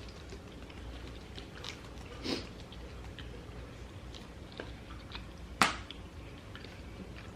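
Close-up chewing and biting of crispy-crusted pepperoni pizza, with scattered small mouth clicks and crunches. There is a louder bite about two and a half seconds in and a single sharp click a little after five and a half seconds.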